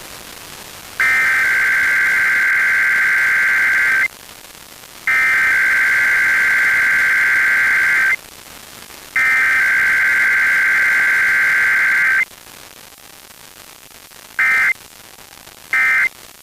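Emergency Alert System SAME data tones for a weekly test: three loud, high-pitched digital data bursts, each about three seconds long with about a second's gap between them. About two seconds after the third come two short end-of-message bursts.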